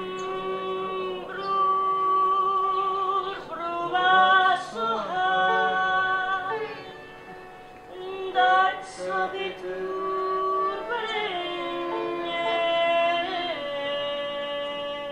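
Voices singing an Indian song to harmonium accompaniment, with long held notes that waver in pitch.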